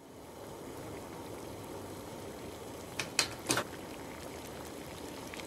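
Saucepan of tapioca pearls boiling on a gas hob, a steady bubbling. About three seconds in come three sharp clicks.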